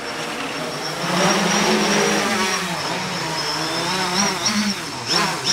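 DJI F550 hexacopter's six E305 brushless motors and propellers buzzing in flight, getting louder about a second in as it comes down close. The pitch wavers and swings quickly near the end as the throttle shifts.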